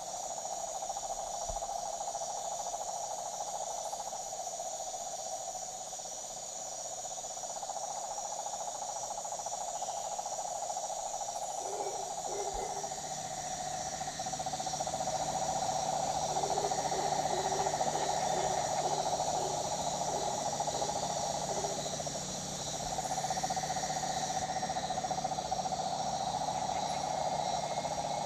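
Rainforest ambience: a dense, steady chorus of calling insects, with a run of short low repeated notes from another animal about halfway through.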